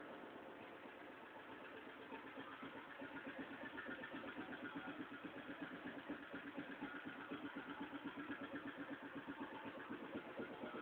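Engine idling with an even, lumpy pulse from an estralador ignition-cut module set to its 'roncar' (rumble) mode. The pulsing grows stronger a few seconds in.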